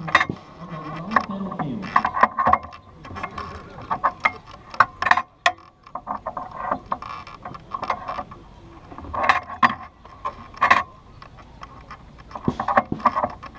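The hand-wound winch of an arbalest (a large siege crossbow), turned with pegs, its ratchet clicking and knocking at uneven intervals as the bow is drawn back.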